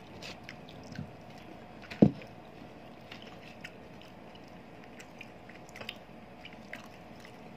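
Quiet close-up eating sounds: faint chewing and scattered small clicks, with one loud, sharp knock about two seconds in.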